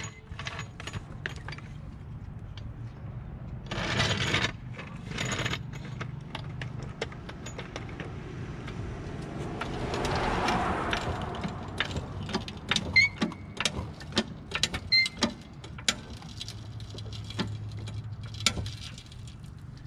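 Floor jack being rolled over concrete and worked under a car. Scraping and rolling sounds come first, with a swell of scraping about halfway through, then a run of sharp metallic clicks and rattles from the jack and its handle as it is pumped.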